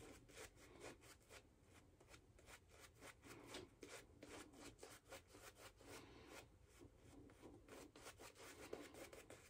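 Faint, quick scrubbing of a synthetic-knot shaving brush working lather over the face, many short strokes a second.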